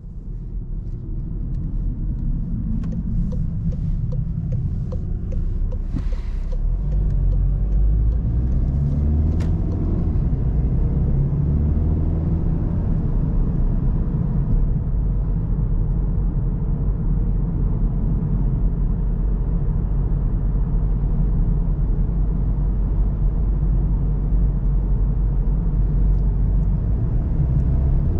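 VW Golf GTD's 2.0 TDI four-cylinder diesel pulling away and accelerating through the DSG gears, then cruising with a steady engine and road rumble. The engine note rises and drops a few times in the first ten seconds as the gearbox shifts up, with a few short clicks in between.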